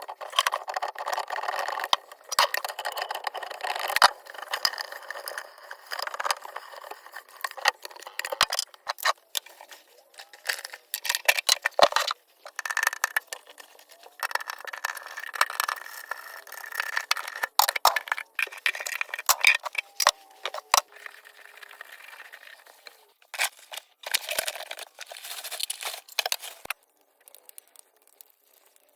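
Irregular clanks, clicks and rattles of metal tools and parts being handled in a small space, typical of work under a sink on a garbage disposal. The sounds come in busy stretches broken by short pauses and die down near the end.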